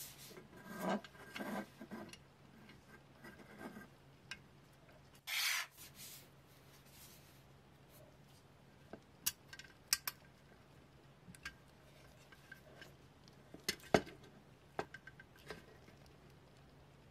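Small-object handling: a few rubbing strokes near the start, a short hiss about five seconds in, then scattered light clicks and taps.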